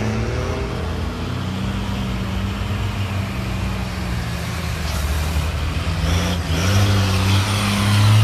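Mercedes-Benz truck's diesel engine running under load as it drives past, a steady low drone whose pitch dips and then rises again about six and a half seconds in. It grows louder near the end as the truck comes close.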